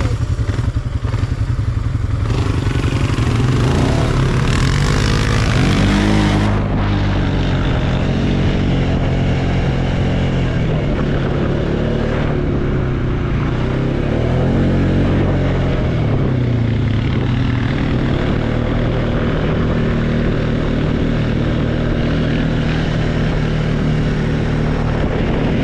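ATV engine running while riding, its pitch rising and falling again and again as the throttle opens and closes. A rushing hiss sits over the first six seconds or so, then drops away suddenly.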